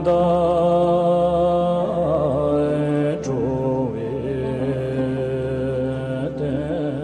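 A Buddhist mantra chanted in long, steadily held notes. The pitch moves around two seconds in and again a little after three seconds.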